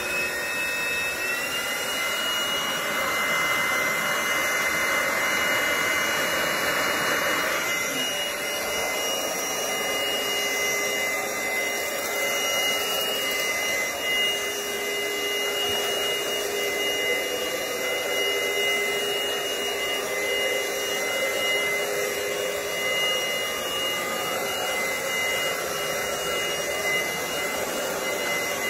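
Cordless stick vacuum cleaner's motor running, its high whine rising and settling about a second in, then holding steady over the rush of air.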